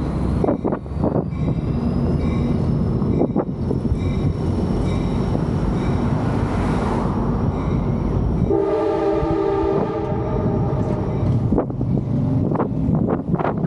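Steady rumble of traffic and wind on a bridge walkway. About eight and a half seconds in, a vehicle horn sounds one chord of several tones for about a second and a half.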